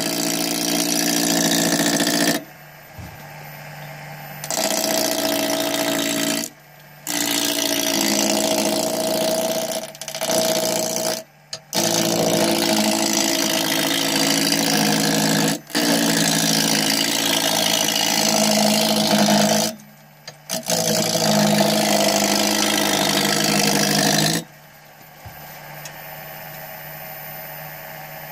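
Wood lathe running with a steady hum while a turning tool cuts the spinning wood blank in loud, rough passes of a few seconds each, broken by short pauses. The cutting stops about three quarters of the way through, leaving only the lathe's hum.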